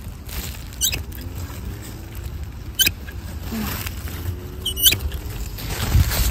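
Wind rumbling on the microphone, with a few short sharp clicks about two seconds apart.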